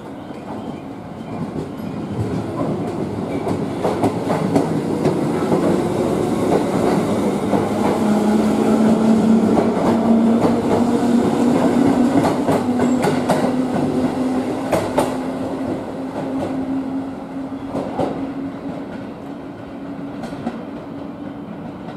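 JR East 205 series electric commuter train pulling out and running past, with its wheels clicking over the rail joints and its motors humming, the hum rising a little in pitch as it gathers speed. The sound builds to its loudest around the middle and fades as the last car leaves.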